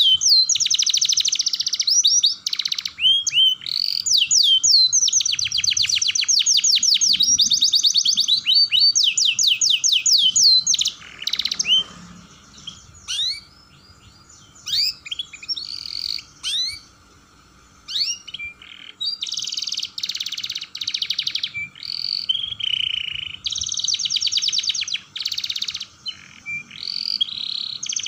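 Domestic canary singing in fast rolling trills: long runs of rapid, evenly repeated high notes mixed with short chirps. The song drops to a few scattered chirps for several seconds around the middle, then the trills start again.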